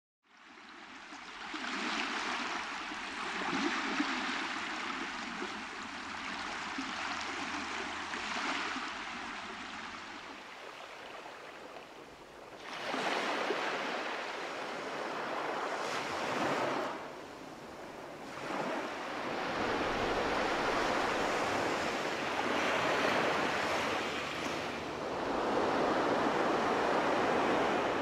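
Ocean surf: waves breaking and washing in, the rush swelling and falling back every few seconds. A faint steady hum runs under the first third.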